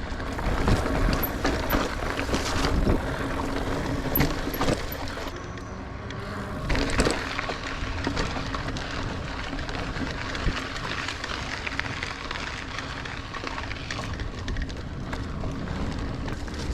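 Niner Air 9 RDO 29er mountain bike riding singletrack: tyres on dirt and the bike rattling and knocking over bumps, with many short clicks throughout.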